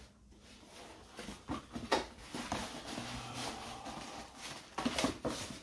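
A cardboard box being handled and its flaps pulled open: scraping, rustling cardboard with a few sharp knocks, the loudest about two seconds in and another pair near the end.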